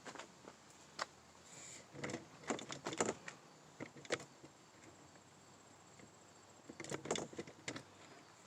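Scattered handling clicks, knocks and rustles: a cluster about two to three seconds in and another near seven seconds, as the scanner is switched off and put away inside a car.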